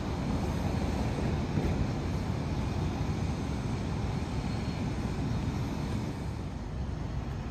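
Steady low rumble of outdoor street ambience, with no distinct events.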